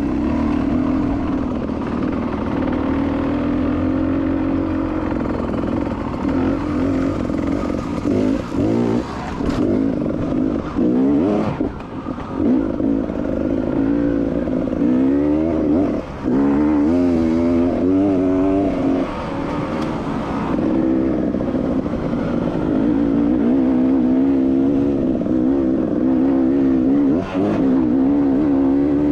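Enduro dirt bike engine running hard under load, heard from the bike being ridden, its pitch rising and falling again and again as the throttle is worked and the gears change.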